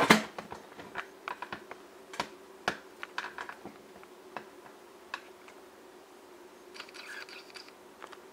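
Irregular light clicks and taps of handling, with one louder click at the very start, over a faint steady hum.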